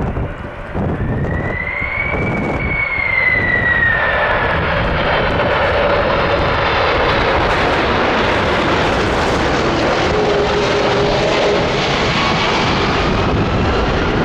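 Boeing 747-400F freighter on final approach, its four jet engines running with a fan whine that rises and then falls in pitch as the aircraft passes.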